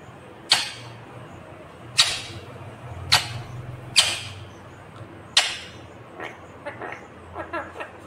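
Rose-ringed parakeet giving five sharp, loud, short squawks over the first five seconds or so, then softer chattering near the end.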